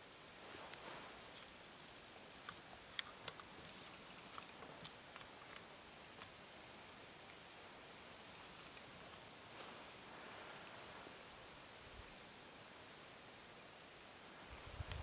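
An insect, cricket-like, chirping in a high, steady pulse of about two chirps a second over a quiet meadow background, with a few faint clicks and rustles about three seconds in.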